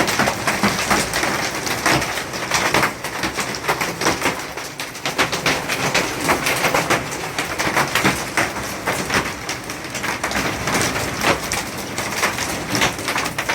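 Hailstones with heavy rain pelting hard surfaces: a dense, uneven patter of many small sharp impacts over the steady rush of the downpour.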